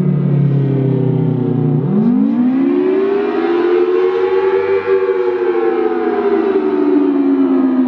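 Federal Signal Thunderbolt 1000T warning siren, with a 4/5-port rotor, sounding the rising and falling attack wail. Its two-note chord dips low, sweeps up sharply about two seconds in, peaks, then slowly winds back down.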